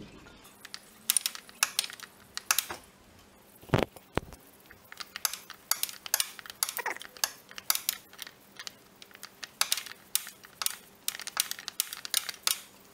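Irregular sharp clicks and light metallic knocks of a spanner working on the oil filter housing cap, several a second in bunches, with one heavier knock about four seconds in.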